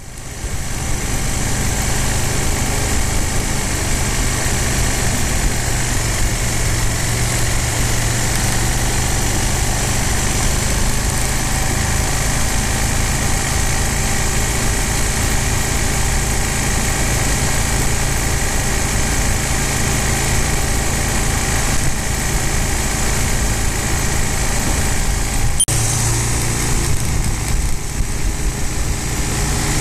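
Motorcycle engine running steadily at road speed, with wind rushing past, heard on board the bike. About 26 seconds in the sound changes abruptly at an edit, then the engine carries on at a similar steady pace.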